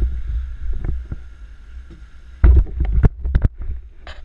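Handling noise on a helmet-mounted action camera: a low rumble with light knocks, then a loud bump about two and a half seconds in and several sharp knocks as the camera and helmet are moved.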